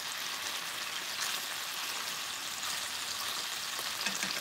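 Chicken pieces and cherry tomatoes sizzling steadily in a soy sauce and sake mixture in a frying pan as the liquid cooks down.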